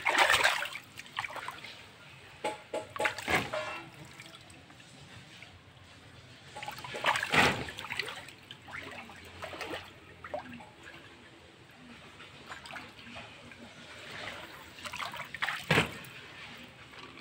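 Water splashing and dribbling over a waterproof kite's skin. A few louder splashes come several seconds apart, with quieter trickling between them.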